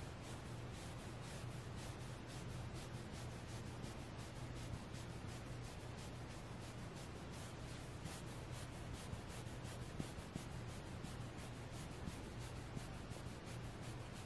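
Fingertips and nails scratching and rubbing the soft velvety fabric of a Squishmallow plush toy. The sound is a steady run of quick, soft scratching strokes, several a second, done as ASMR.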